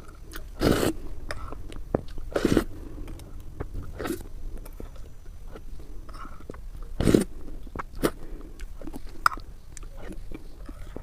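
Close-miked eating: a person takes several loud bites, the strongest about five of them a second or two apart, with quieter chewing clicks in between.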